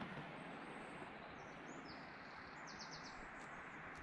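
Small songbirds calling faintly over a steady background hiss in woodland: a few short high chirps in the middle, then a quick run of about five high notes just before the end.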